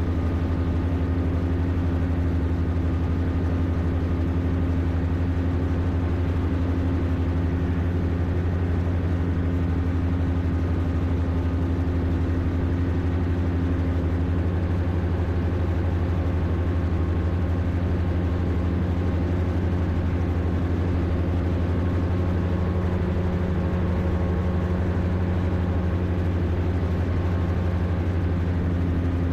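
Rotax 582 two-stroke twin-cylinder engine of an X'Air Standard microlight droning steadily in flight, heard from the cockpit, with a deep hum and a steady pitch.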